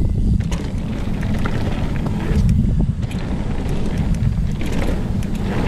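Mountain bike riding fast down a rough dirt trail: heavy wind rumble on the chest-mounted camera's microphone, with frequent clicks and clatters from the bike over bumps.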